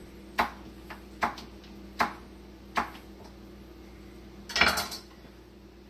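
A knife striking a wooden cutting board four times, short sharp knocks under a second apart, followed by a louder clatter about four and a half seconds in.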